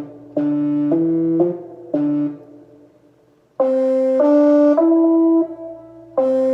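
Electronic keyboard playing short phrases of held notes on one of its preset voices, with a brass-like tone. A phrase of three or four notes opens, a lull follows, and a louder phrase of four notes starts about three and a half seconds in, with another beginning near the end.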